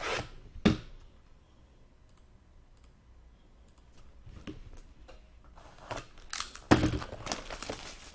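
Hockey card box being opened by hand: two sharp clicks, a quiet pause, then a run of packaging rustling and handling clicks with one louder knock about two-thirds of the way in.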